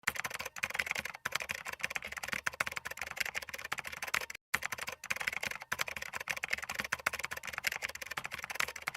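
Rapid keyboard typing: a dense run of clicking keystrokes, many per second, stopping briefly a few times, longest about halfway through.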